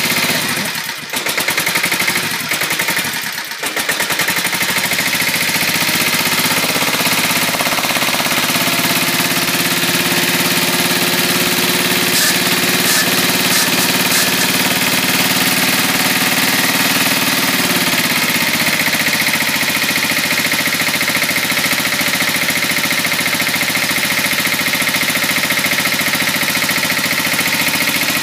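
Small gasoline engine of a hydraulic log splitter running steadily, warming up after a cold start in freezing weather without starting fluid, its oil still thick. Its sound dips twice in the first few seconds, and its tone shifts slightly about 18 seconds in.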